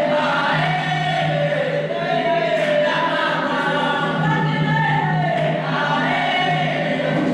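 A group of voices singing a melody together in chorus, heard as film-soundtrack playback over loudspeakers in a hall.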